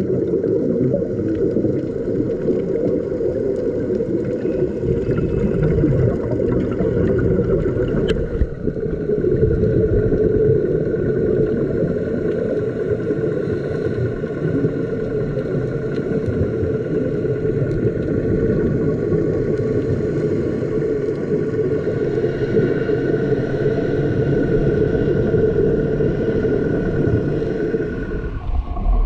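Boat engine running with a steady low rumble and a faint steady whine above it. It fades just before the end.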